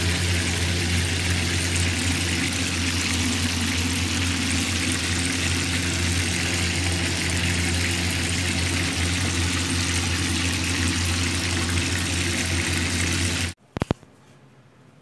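Whole fish deep-frying in hot oil in a pan, sizzling steadily over a steady low hum. The sizzle cuts off abruptly near the end, leaving a faint quiet room and a couple of clicks.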